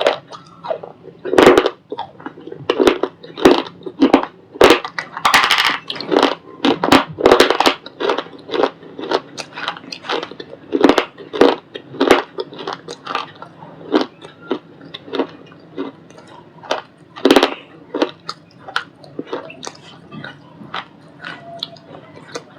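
A ball of white shale stone being crunched and broken apart: an irregular run of sharp, gritty crunches, about one to two a second, with a longer crumbling stretch about five seconds in.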